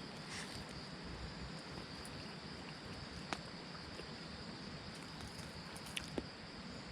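Steady high chirring of insects, with a few faint sharp clicks about a third of a second in, near the middle and twice near the end.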